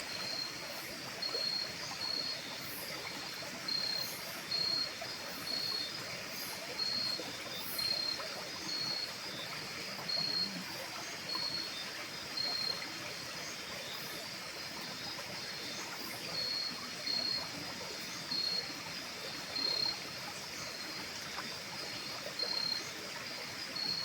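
Outdoor night ambience: a steady hiss with a short high chirp repeating every second or so, in the way night insects sound.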